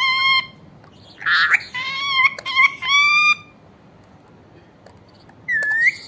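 Rose-ringed parakeet calling: a run of high, clear calls in the first three seconds with one harsh squawk among them, then a single short call near the end.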